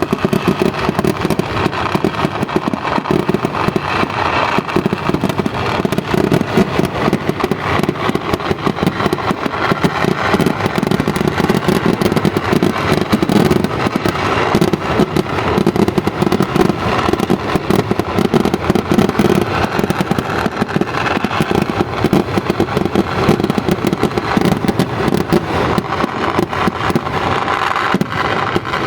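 Fireworks crackling in a dense, unbroken stream of rapid pops, loud and steady throughout.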